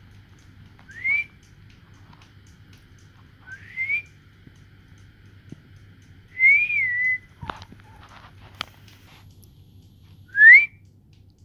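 Someone whistling four short notes a few seconds apart, each a quick upward slide; the third is longer, rising then wavering down, and the last is the loudest. Two short clicks come between the third and fourth.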